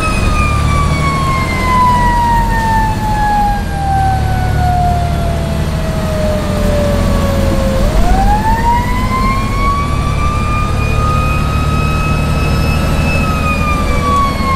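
Fire engine's siren on a slow wail: the pitch falls for about eight seconds, climbs back up, then starts to fall again near the end. The truck's engine rumbles low underneath, heard from inside the cab.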